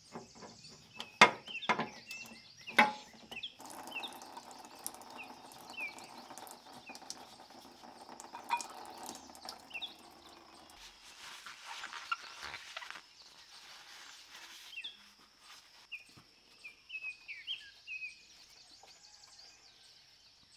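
Sharp clicks and clinks of hand tools on metal as a tractor's diesel fuel line and filter are worked on, loudest in the first three seconds, then quieter handling noises. Small birds chirp throughout, and a faint steady hum runs from about four to ten seconds in.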